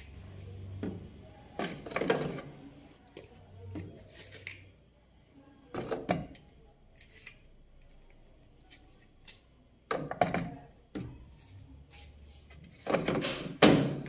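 Scattered knocks and handling noises from the plastic detergent dispenser drawer of a top-load washing machine as powder detergent is put in, then a loud plastic clack near the end as the drawer is pushed shut.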